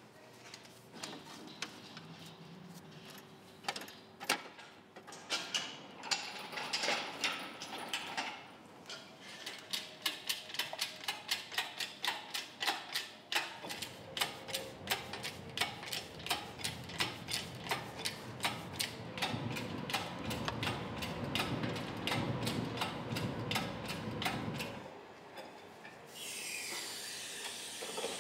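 Workshop tool work on a car: a long run of quick, regular ratchet-like clicks, several a second. A low rumble sits under the clicks for several seconds in the middle.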